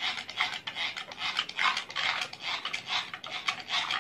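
Handheld push-pump plunger mixer whisking moringa powder into water in a glass mug. It runs as a quick rhythm of rasping strokes, about three or four a second, as the plunger is pressed and the whisk spins in the liquid.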